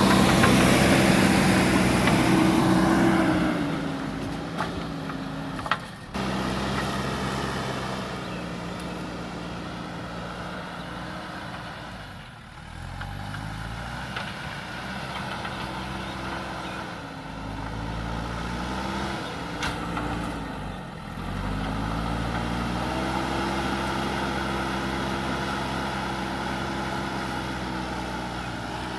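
Diesel engine of a heavy earthmoving machine working, its pitch dropping and rising again several times as it is throttled under load. It is loudest, with a hiss, in the first few seconds.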